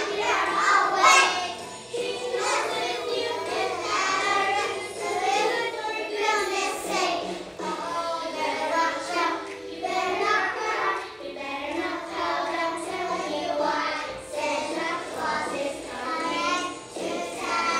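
A group of children singing a Christmas song.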